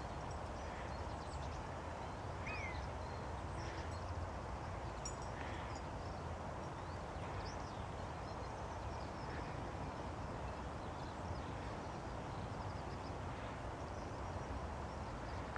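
Common buzzards calling at a distance: a few faint mewing calls, the clearest a short falling mew about two and a half seconds in, over steady outdoor background noise with faint high chirps.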